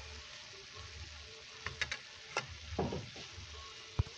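Chicken liver and gizzard adobo sizzling in its soy-and-honey sauce in a pot, while a porcelain spoon clinks against the pot a few times, the sharpest click near the end.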